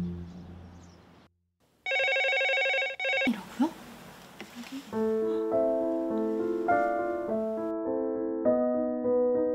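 Opening theme music fades out into a moment of silence. A short pulsing electronic tone follows about two seconds in, and light electric-piano background music starts about five seconds in.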